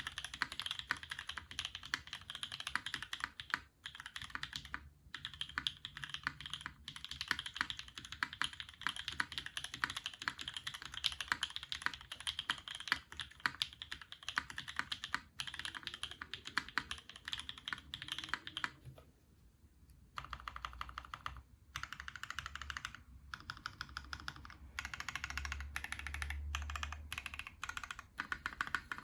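Typing on a brass Keycult No. 1/60 custom mechanical keyboard with NovelKey Cream linear switches, an FR4 plate and GMK keycaps: a dense, continuous stream of keystrokes that pauses briefly about two-thirds of the way through.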